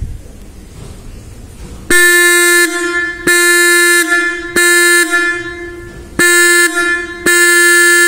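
Electric bike horn with a pesticide-sprayer cap bolted to the centre of its disc, changing its tone. It is sounded from a battery in five short blasts of about a second or less, starting about two seconds in, each one a steady, buzzy note.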